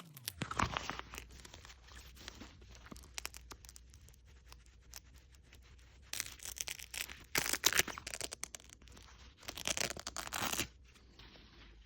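Hook-and-loop (Velcro) fastener being ripped apart, a crisp rasping tear. There is a short rip near the start, then three louder, longer rips in the second half.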